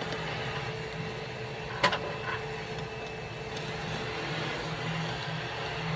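A steady machine hum with a held tone, and one sharp click or knock about two seconds in.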